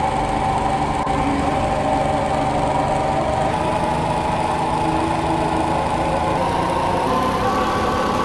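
A steady soundtrack drone of several held tones stacked over a low rumble, with no break or change in pace.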